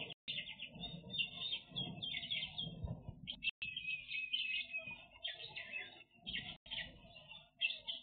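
A flock of small aviary finches chirping and chattering, many quick overlapping calls at once with brief pauses.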